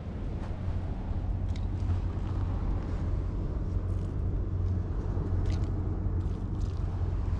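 Steady low rumble of wind on the microphone at the shore, with a few faint dry crackles of reed stalks and debris.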